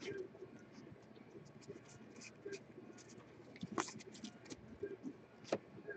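Faint scraping and light clicks of football trading cards being handled and slid against one another, with a couple of sharper ticks about four and five and a half seconds in.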